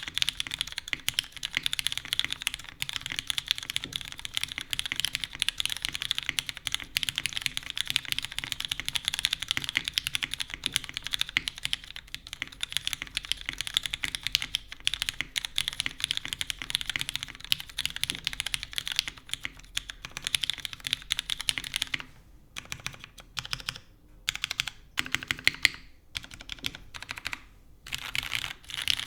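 Fast typing on a custom mechanical keyboard with lubed, filmed Cherry MX Black linear switches, GMK keycaps and a full aluminium plate with no dampening foam: a steady rush of keystrokes. About three quarters of the way in it breaks into short bursts with pauses, then runs fast again near the end.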